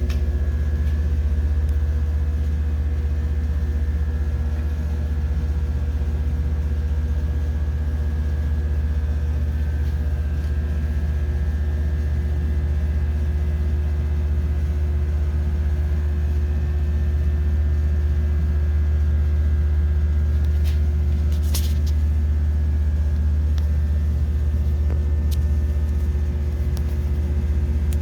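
Steady low machinery hum with a few faint, constant whining tones above it, unchanging throughout, and a short burst of clicks about twenty-one seconds in.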